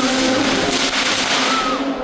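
Fireworks hissing steadily and dropping away near the end, over band music with held notes.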